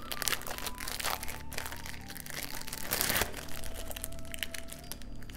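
Plastic wrapper crinkling as a cheese slice is unwrapped, a run of crackles with a louder crinkle about three seconds in.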